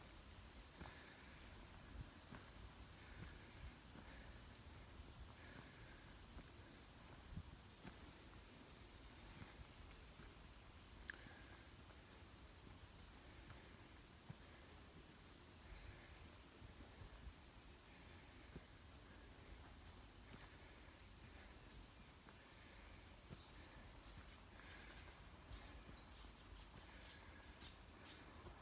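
Steady, continuous high-pitched chorus of insects, such as crickets or cicadas, in a forest.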